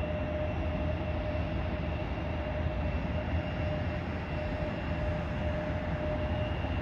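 Jet engines of a Boeing 757 freighter at takeoff thrust, heard from a distance as a steady rumble with a faint steady whine above it.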